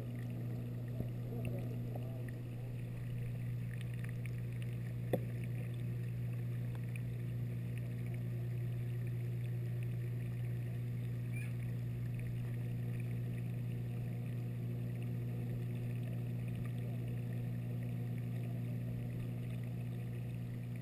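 Steady low hum of a reef aquarium's water pumps, with one sharp click about five seconds in.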